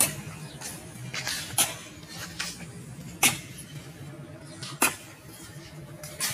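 Sharp, evenly spaced strikes, about one every second and a half, with fainter knocks in between: a hand tool hacking at overgrown brush and wood.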